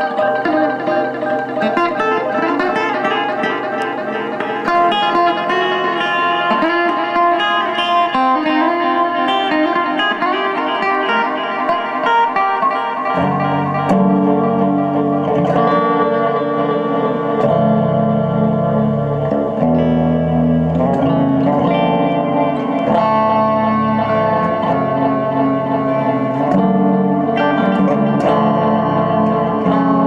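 Instrumental music led by plucked guitar with effects and reverb; a low bass part comes in about thirteen seconds in.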